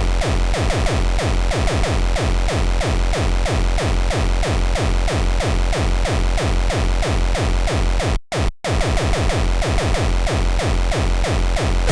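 Fast electronic techno (tekk) track with a rapid, steady kick drum whose hits drop in pitch. The music cuts out twice for an instant about eight seconds in.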